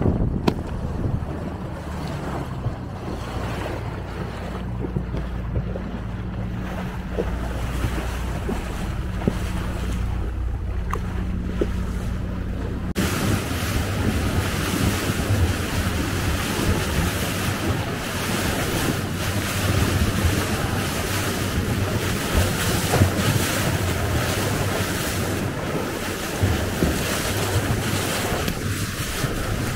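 Motorboat engine running steadily under wind and water noise. About 13 seconds in the sound changes abruptly to a louder hiss of wind on the microphone and water rushing along the hull, with an uneven low rumble.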